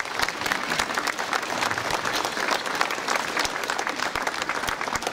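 Crowd applauding steadily: dense hand-clapping from an outdoor audience.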